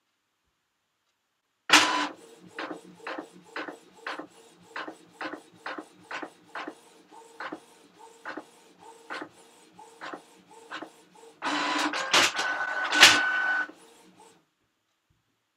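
A printer running a job. It starts with a sudden loud burst, then runs with a steady hum and a regular clack about two to three times a second. Near the end comes a louder, denser stretch of mechanism noise with a steady high whine, and then it stops.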